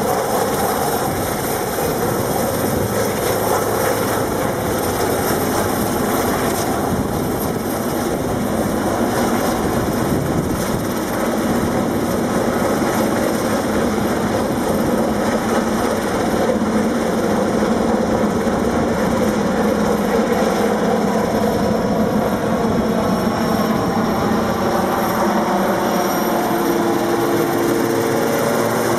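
Sikorsky S-61N helicopter flying low and close, its main rotor and twin turboshaft engines running at flight power in a steady, loud rotor-and-turbine noise. A faint high turbine whine comes in near the end.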